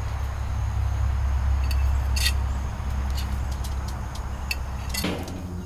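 Spatula-tongs scraping and clicking on a grill grate as chicken thighs are lifted onto a plate: a few light clinks and scrapes over a steady low rumble that drops away about five seconds in.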